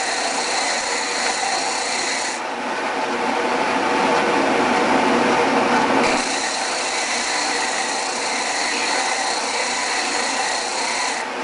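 Disc sander running with the glued face of a segmented wooden bowl half held against its abrasive disc: a steady grinding hiss as the wood is sanded flat. The sound changes, losing some of its high edge, between about two and six seconds in.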